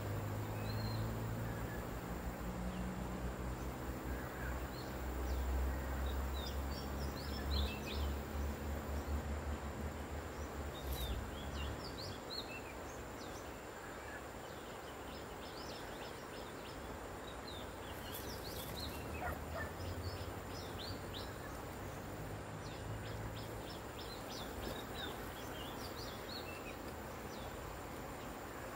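Outdoor riverbank ambience: many short, high-pitched bird chirps scattered throughout over a steady background hiss, with a low hum in the first dozen seconds that returns more faintly around twenty seconds in.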